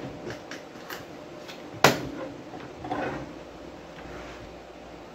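Metal amplifier chassis being slid out of a powered speaker cabinet: light scrapes and rattles, with one sharp knock about two seconds in.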